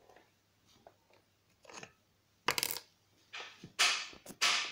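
Hard plastic and metal parts clattering as they are handled: faint clicks at first, then a run of sharp clacks with short ringing tails, the loudest in the second half. This is the yellow plastic transport plate being pulled off the chainsaw's bar studs and set down on the wooden table.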